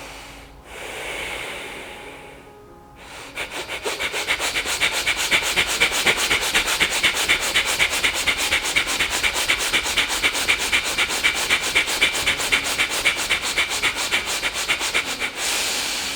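Bhastrika pranayama (bellows breath): forceful, rapid breaths in and out through the nose in an even rhythm, after one slower breath at the start and ending with a longer, deeper breath.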